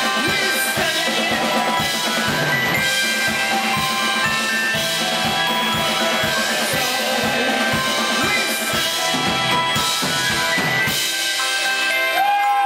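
Live rock band playing, the drum kit keeping a steady beat under the other instruments. About eleven seconds in the drums stop and a held chord rings on.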